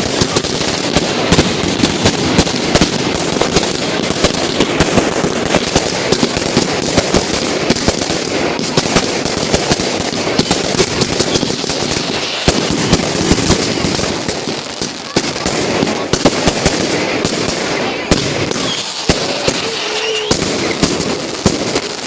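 Fireworks going off in a dense, continuous barrage of bangs and crackling, easing off a little past the middle.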